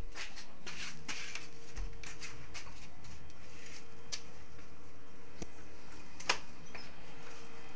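Handling noise of a phone held to record: scattered small clicks and rustles over a steady hiss and faint hum, with one sharper click about six seconds in.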